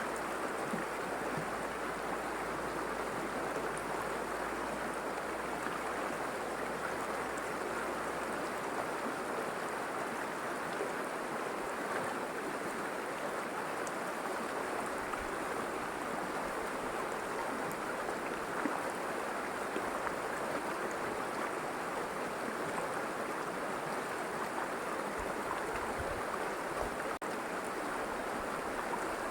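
River water flowing steadily, a continuous even rush of water noise, with one momentary drop near the end.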